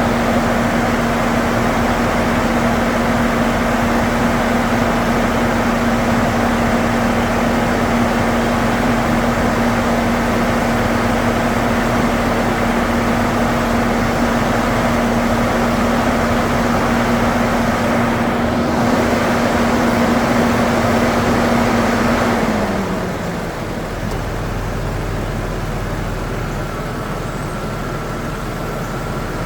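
2008 Saturn Vue idling with its air conditioning running during a refrigerant recharge: a steady hum over engine-bay fan noise. About 22 seconds in, the hum drops in pitch and gets quieter, then rises again at the very end, as the A/C compressor cycles off and back on.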